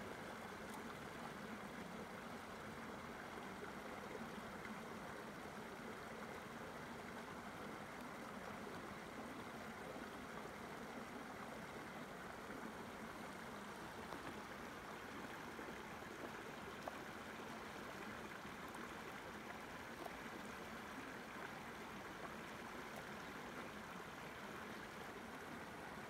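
Mountain stream rushing and gurgling over rocks, a steady unbroken wash of water, with a few faint taps.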